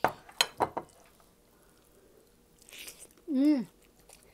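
Mukbang eating at a table: a few sharp clacks as a plate is set down in the first second, then soft chewing and a slurp, and a short hummed "mm" from a voice, rising then falling, about three seconds in.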